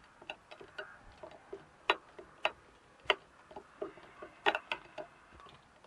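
Bent valve cover of a T-25 tractor engine rocking on a flat sheet of glass, its edge tapping the glass in irregular clicks, a few louder knocks in the middle. The rocking is the sign that the cover is warped out of flat, the cause of oil seeping from under it.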